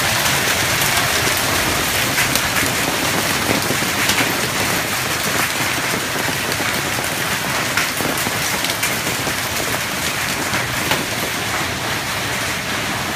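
Hail falling heavily with rain: a dense, steady hiss with many sharp ticks of hailstones striking hard surfaces.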